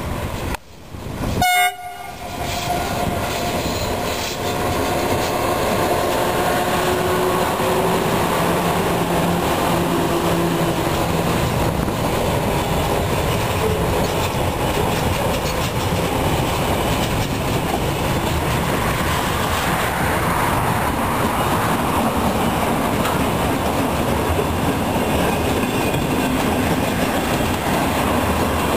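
Freight train hauled by two Spoornet electric locomotives passing close by: a short horn blast about a second and a half in, then the steady noise of the locomotives and a long string of wagons rolling and clattering over the rails.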